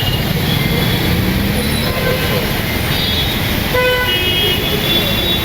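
Road traffic noise, a steady rush, with short vehicle horn toots scattered through it.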